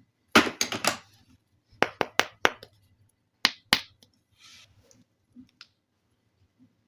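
Small hard plastic toy pieces clicking and knocking against each other: a quick flurry of clicks, then several sharp single clicks, and a brief soft rustle near the end.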